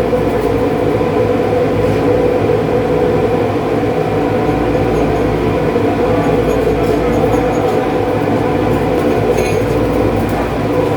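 A steady, loud mechanical drone with an unchanging hum.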